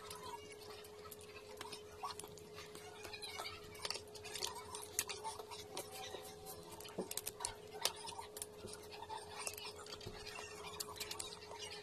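Scattered small clicks and crackles of seafood shells being peeled apart by hand, mixed with wet chewing and lip-smacking, over a faint steady hum.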